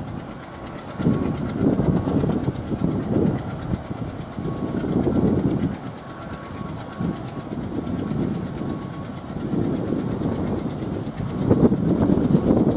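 MLW diesel locomotives approaching, their engines running with an uneven, pulsing throb that grows louder near the end.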